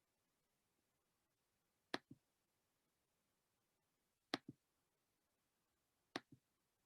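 Near silence: room tone broken by three faint, sharp clicks about two seconds apart, each followed closely by a softer second click.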